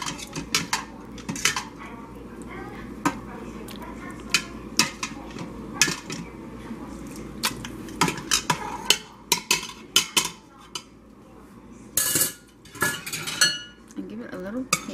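Metal utensils stirring thick chili in the stainless steel inner pot of an electric pressure cooker, with irregular clinks, knocks and scrapes against the pot. Near the end comes a louder clatter with a short ring.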